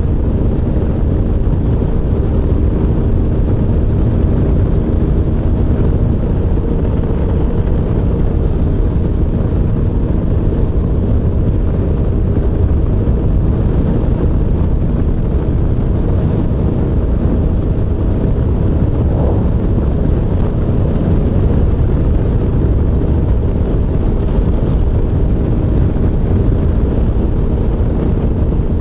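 Adventure motorcycle cruising at a steady highway speed: its engine drones evenly under a constant rush of wind on the helmet-mounted microphone.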